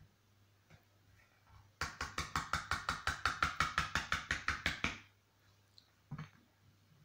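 Wire whisk beating cake batter in a plastic bowl, the wires tapping against the bowl's sides in a quick, even rhythm of about seven strokes a second. The tapping starts about two seconds in and stops about three seconds later, and a single knock follows about a second after that.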